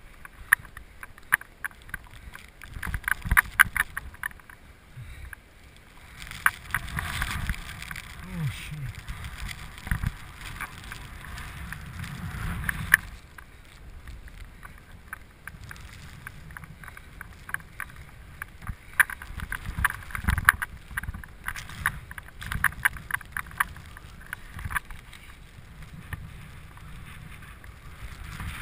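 Wind buffeting a helmet-mounted GoPro's microphone in uneven gusts, a low rumble broken by runs of rapid crackling clicks.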